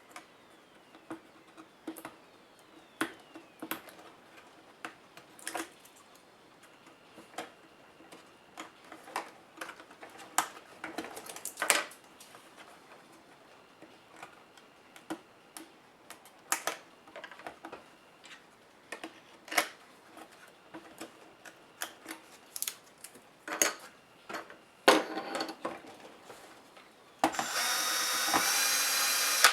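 Small clicks and taps of tools and plastic laptop parts being handled and pried during disassembly, at irregular intervals. Near the end there is a louder steady whirring for about two seconds.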